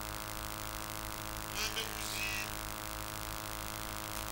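Steady electrical hum and buzz from a microphone and loudspeaker system, with a brief snatch of a voice about a second and a half in.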